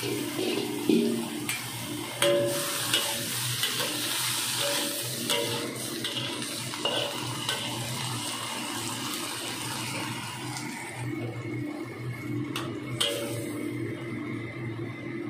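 Snow peas and carrot slices stir-frying in a carbon-steel wok: a steady sizzle, broken by sharp metal knocks and scrapes as the vegetables are stirred and tossed. The sizzle thins out near the end, over a steady low hum.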